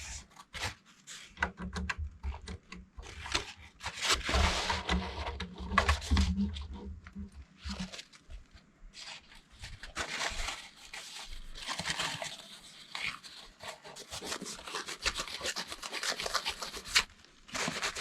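Hands working on the inside of a desktop computer: irregular clicks, taps and scraping of metal and plastic parts being handled.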